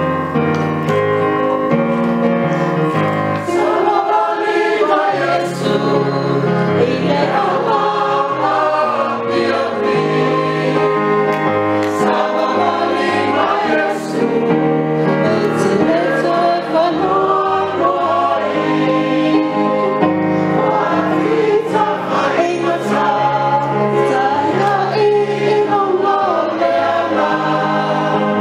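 A choir, mainly of women, singing together in parts, over keyboard accompaniment holding steady low notes that change pitch every few seconds.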